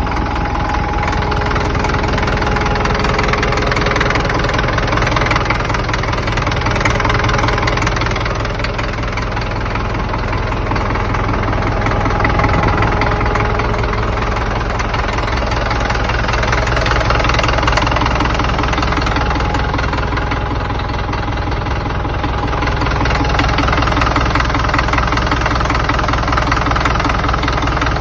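Caterpillar D4D bulldozer's diesel engine running steadily at a low, even speed.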